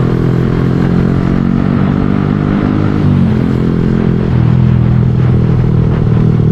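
Motorcycle engine running while being ridden, its pitch dipping slightly about three seconds in and then holding steady.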